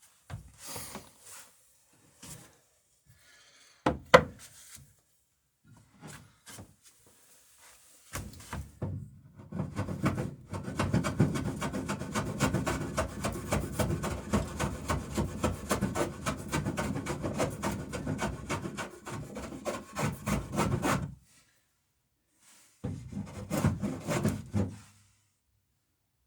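Hand tool scraping down the edge of a wooden boat plank in rapid, repeated strokes, fairing out a spot where the plank swooped out. The strokes come in a long run of about twelve seconds and a short one near the end. Before them there are scattered knocks, the sharpest about four seconds in.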